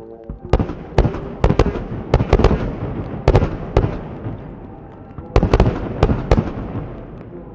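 Fireworks going off: a quick string of sharp bangs with crackling in between, coming in two clusters, the first over the opening few seconds and the second about five and a half to six and a half seconds in, then fading to a low rumble.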